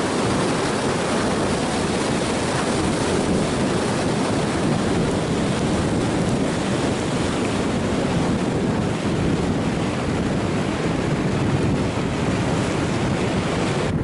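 Wind rushing steadily over the microphone of a skier's action camera at about 55 to 65 km/h, a loud, even roar of air.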